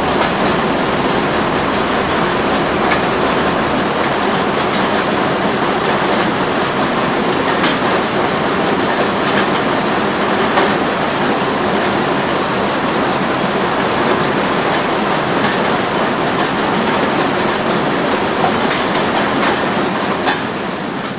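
Perkins diesel engine of a Versatile 276 tractor running steadily after a cold start, with a constant mechanical clatter.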